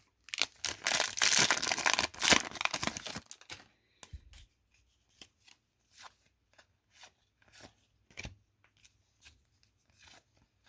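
A 2016 Donruss football card pack's wrapper torn open, a noisy rip lasting about three seconds, then soft flicks of trading cards slid through one at a time, roughly every half second.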